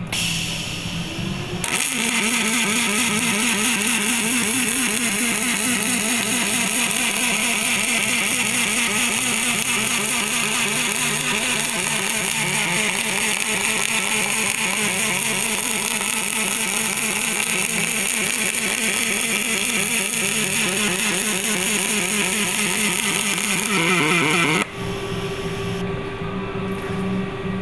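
MIG welding arc on aluminum, fed with 3/64" wire through an air-cooled robotic torch on an automated circle welder. It starts about two seconds in, buzzes and crackles steadily for over twenty seconds, then cuts out suddenly near the end, leaving a quieter steady hum with a held tone.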